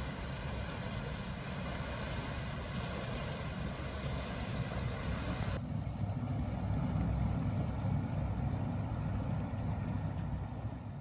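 Steady low rumble of a passing inland motor cargo ship's diesel engine, with the hiss of water and wind over it. About halfway through the sound changes abruptly: the hiss drops away and the low engine rumble comes up louder.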